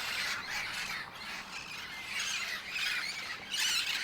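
A large flock of wild parrots squawking and screeching together, many overlapping harsh calls at once, so loud.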